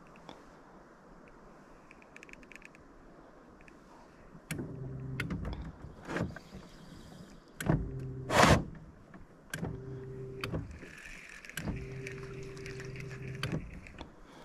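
Electric trolling motor humming in four short runs, switched on and off as the boat is nudged along. There are a few sharp clicks and knocks between the runs, the loudest about eight seconds in.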